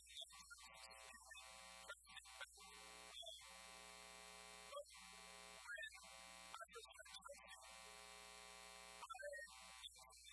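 Very faint steady electrical buzz, dropping out and coming back at irregular moments.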